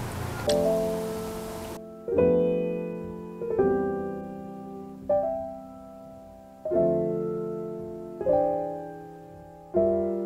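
Background piano music: slow chords struck about every one and a half seconds, each ringing on and fading. A faint hiss lies under the first two seconds, then cuts out.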